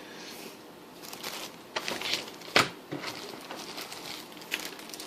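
Rustling of packaging being handled, with a few sharp clicks and knocks, the loudest about two and a half seconds in.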